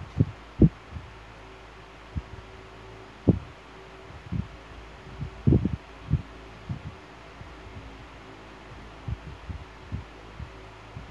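Dull low thumps at irregular intervals, about a dozen, over a steady low hum and light hiss. The loudest thumps come near the start, at about three seconds in and at about five and a half seconds in.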